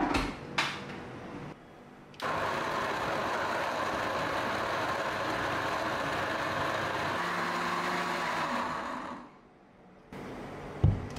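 Countertop blender running steadily for about seven seconds, blending turmeric for a turmeric shot, then winding down. Two sharp clicks just before it starts and a knock near the end.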